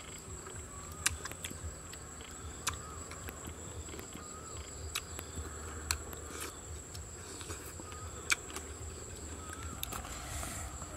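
Steady high-pitched insect chirring in the background, with a few sharp clicks scattered through it and some faint short chirps.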